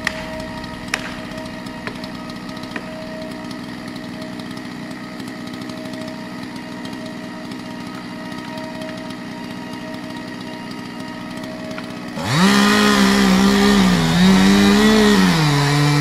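Large gasoline chainsaw cutting through a big tree trunk. A steady lower drone with a few faint clicks runs first; about twelve seconds in, the saw comes in much louder at full throttle, its pitch dipping and rising as the chain bites into the wood, for about four seconds.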